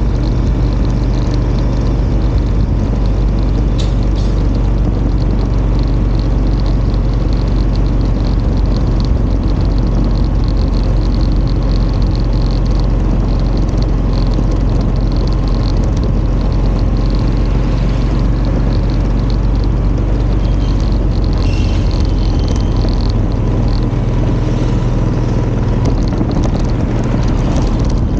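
Small motorcycle's engine running steadily as it cruises along the road, a constant low hum under road noise.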